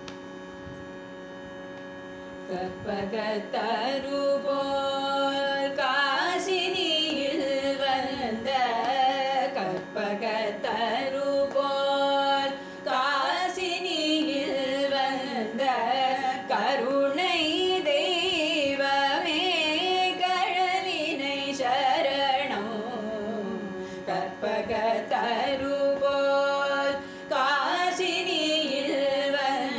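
Carnatic devotional bhajan: a steady drone opens it, and a singer comes in about two and a half seconds in, singing ornamented, gliding phrases over the drone.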